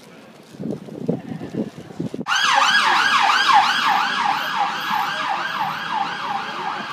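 Police car siren in its fast yelp mode: a rapid rising-and-falling wail, about three to four sweeps a second, that starts suddenly about two seconds in. Before it come a few low thuds.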